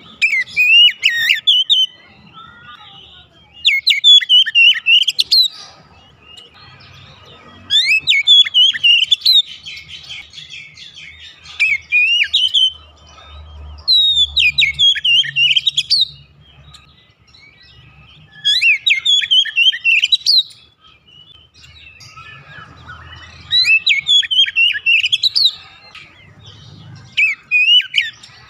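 Oriental magpie-robin singing in repeated loud phrases of fast, varied whistled notes. Each phrase lasts about two seconds and comes every few seconds.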